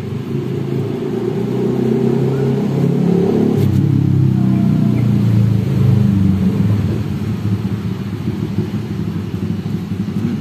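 A motor vehicle's engine running close by, a low rumble that builds over the first few seconds and eases off after about six seconds.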